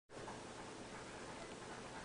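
Faint steady hiss of room tone, with no distinct sound.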